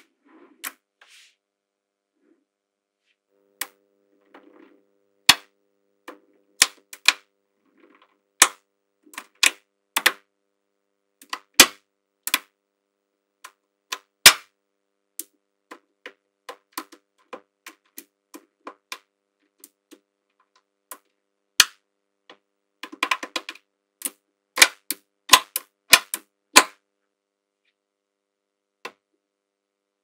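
Small metal magnetic balls snapping together as rows and layers are joined: sharp single clicks with silence between, and a few clusters of rapid clicks near the end.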